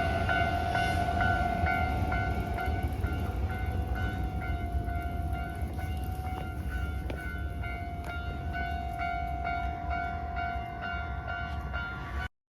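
Japanese railway level-crossing warning bell ringing in a steady, evenly repeated rhythm while a Hankyu train rumbles through with a steady high whine. The sound cuts off suddenly near the end.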